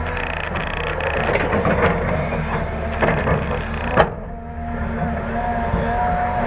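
Caterpillar hydraulic excavator working: its diesel engine runs steadily under scattered clatter and knocks as it swings back from the dump truck and digs into loose coal. A sharp click comes about four seconds in, followed by a steady wavering whine.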